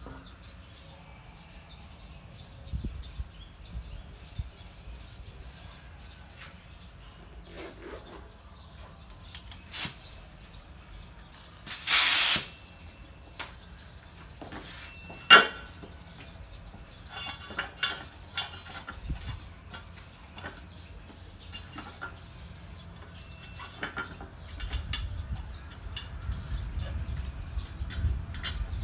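Short hissing bursts, the loudest lasting under a second about twelve seconds in, among scattered sharp metallic clinks and knocks, with a low rumble rising near the end.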